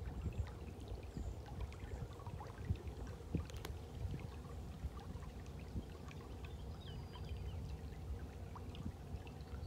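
Water washing and trickling at the bow of a narrowboat cruising slowly along a canal, over a steady low rumble. A few faint bird chirps come through.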